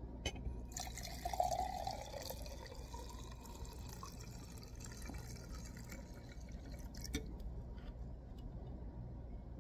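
Gasoline pouring from an old fuel/water separating filter canister into a glass cup, loudest for a couple of seconds about a second in, then fading to a faint trickle.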